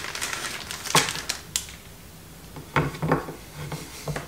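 Plastic sausage packet crinkling as thin kabanosy are pulled out of it, with a few light taps and clicks as the sausages are laid on a wooden cutting board.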